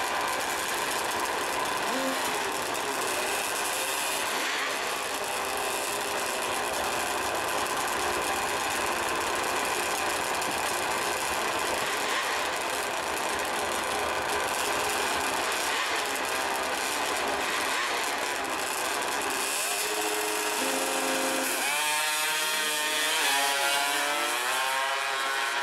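Two-stroke drag-racing motorcycle engines revving hard at the starting line with a high, buzzing note. About 21 seconds in, a bike launches, and the engine pitch rises, drops and rises again as it shifts up through the gears.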